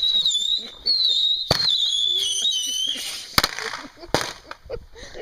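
Consumer firework whistling, a high wavering whistle that slides slowly lower and stops about three seconds in. Sharp bangs come about a second and a half in, just after three seconds, and a smaller one soon after.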